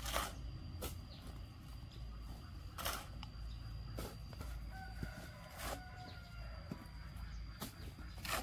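About half a dozen sharp knocks at uneven intervals, with a rooster crowing faintly about midway through.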